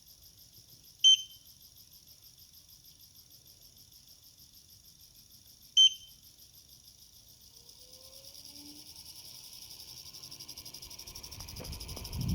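Xiaomi Air Purifier 3 fan running at low speed with a fast, high-pitched ticking, the fault the owner is reporting. Two short beeps sound, about a second in and again near six seconds, and from about eight seconds the fan noise slowly grows louder, with a low thump at the very end.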